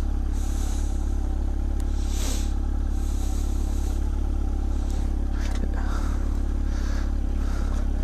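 Motorcycle engine running at a steady idle, a constant low rumble with no revving.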